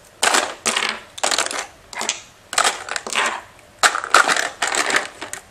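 Plastic makeup tubes and sticks clattering and rattling against each other and a plastic storage drawer as they are put back in and shifted around, in a string of irregular bursts.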